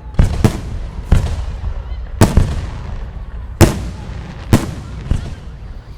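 Aerial fireworks shells bursting: about seven sharp bangs at irregular intervals, each followed by a short rumbling echo.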